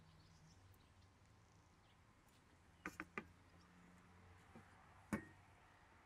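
Near silence broken by a few faint clicks: three quick ones about three seconds in and a single sharper one near the end.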